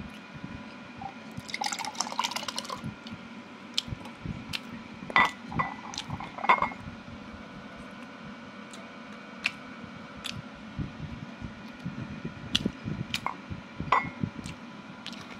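Milk tea with jelly cubes poured from a bottle into a glass tumbler: liquid splashing and dripping into the glass, with a flurry of small clinks and a few sharp knocks against the glass in the middle.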